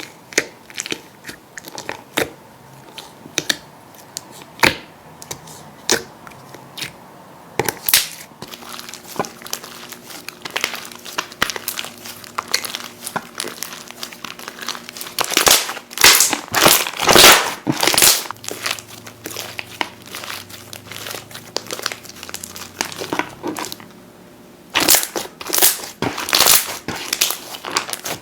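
Slime being squeezed and pressed by hand, giving a run of sharp crackling and popping clicks, with denser, louder bursts of crackling about halfway through and again near the end.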